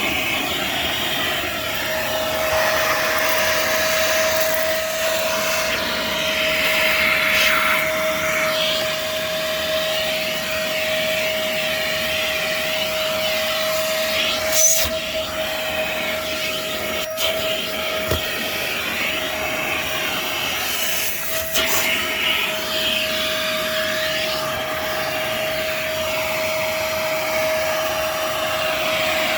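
Vacuum cleaner running with a steady whine, its suction hiss shifting as the nozzle works over the car's interior. A few sharp knocks come around halfway and two-thirds of the way through.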